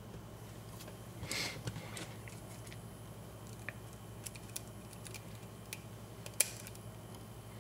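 Faint light metal clicks and a short scrape from a dimple lock cylinder and its key or pick being handled. There is one sharper click near the end.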